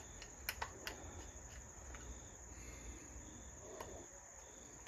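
Faint, scattered clicks and taps of parts being handled as the chainsaw's stuck crankcase halves are worked apart, over a steady faint high-pitched whine.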